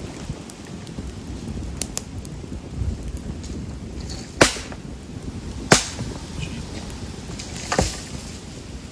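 Dead sticks being snapped by hand for firewood: about five sharp cracks, the loudest about four and a half seconds in, over low wind rumble on the microphone.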